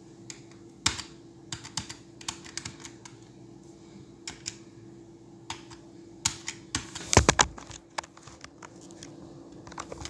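Irregular clicking and tapping on a computer keyboard, a key or two at a time, with a quicker run of louder clicks about seven seconds in, over a faint steady hum.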